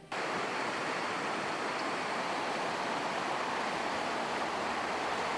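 Steady rush of a river's flowing water, an even noise that starts abruptly and holds level.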